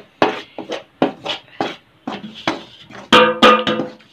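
A perforated metal ladle scraping and turning gram flour in a pan, in short strokes about two to three a second. About three seconds in there is a louder pitched scrape lasting most of a second.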